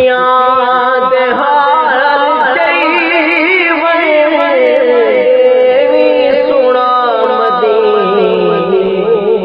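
A man's solo voice singing a devotional naat without instruments: one long ornamented line whose held notes waver and glide in pitch. It begins abruptly at full strength.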